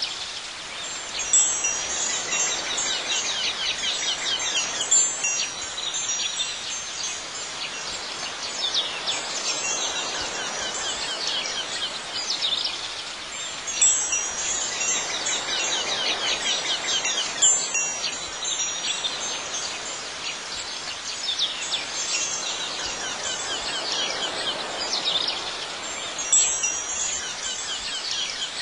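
Wind chimes tinkling throughout, with clusters of louder, high ringing strikes every few seconds; the same pattern comes round again about every twelve and a half seconds, like a looped ambient recording.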